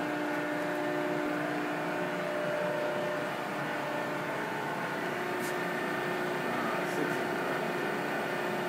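Hydraulic pump and motor of a Cincinnati 230-ton hydraulic press brake running, a steady hum with several even whining tones whose pitch shifts slightly about five seconds in.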